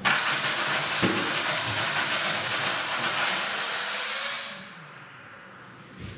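A starter spins over a pulling-truck engine that has its spark plugs out, and air hisses loudly out of the open plug holes. There is a knock about a second in, and the hiss stops abruptly after about four and a half seconds.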